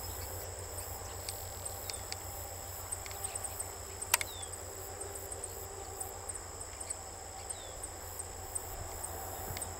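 Steady high-pitched insect trill over a grassland, with scattered short high ticks and a few brief falling bird chirps. One sharp click sounds about four seconds in.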